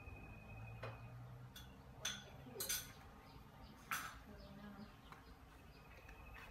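A few sharp clinks and knocks of dishes and utensils being handled at a kitchen counter, over a quiet low hum. A faint steady high tone sounds during the first second.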